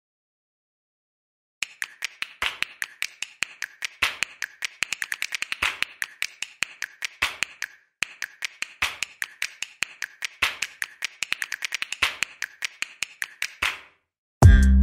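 A metal spoon repeatedly clinking and scraping against a stainless steel frying pan while stirring diced chicken, many quick irregular taps starting about a second and a half in, with a brief pause about eight seconds in. Electronic music with a beat comes in near the end.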